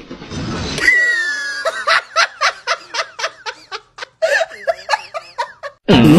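A person laughing in a run of short bursts, about four a second, after a high drawn-out note about a second in. Just before the end a louder drawn-out call cuts in.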